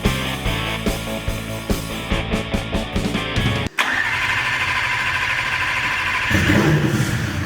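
Rock background music with a steady beat cuts off suddenly about four seconds in. A steady whir follows, then the hillclimb race car's engine fires up about six seconds in and keeps running: its first start on a new engine and freshly made wiring loom.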